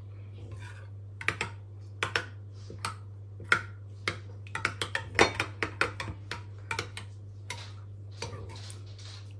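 A utensil stirring a cream sauce in a bowl: irregular clinks and taps against the bowl, over a steady low hum.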